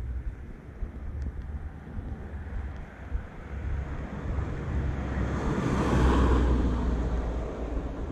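Wind rumbling on the microphone, with a car passing on the road that swells up about five seconds in and fades away again over two or three seconds.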